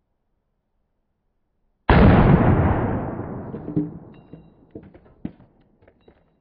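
A single shot from a Schmeisser AR-15 in .223 about two seconds in, dying away over a couple of seconds, followed by a few faint clicks.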